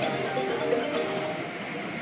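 Music playing, with short held notes changing pitch, over a steady rushing noise.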